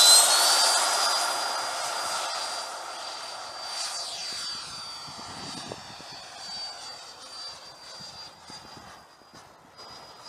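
Freewing F-22 90 mm electric ducted-fan RC jet climbing away just after takeoff: a steady high-pitched fan whine that fades steadily as the plane gets farther off.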